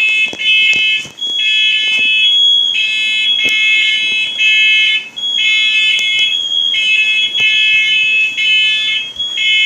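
Household smoke alarm going off: a loud, shrill, high-pitched beep sounding in repeated groups, broken by short gaps.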